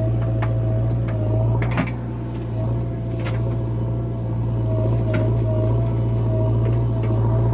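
JCB earthmover's diesel engine running steadily with a low hum and a thin steady whine above it, broken by a few short metallic knocks every second or two.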